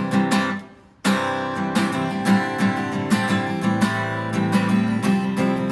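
Worship band music between sung lines, led by a strummed acoustic guitar with a steady chordal backing. The music fades away for about half a second near the start and comes back suddenly about a second in.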